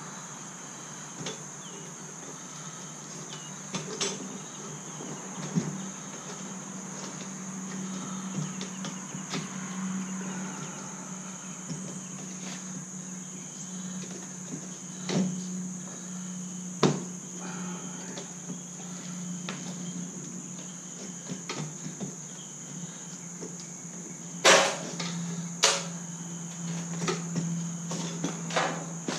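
Scattered clicks and knocks as a 2004 Pontiac Grand Am's fuel pump module is handled and fitted into the fuel tank opening, over a steady high insect buzz and a low hum. Near the end, two sharp clicks are the loudest.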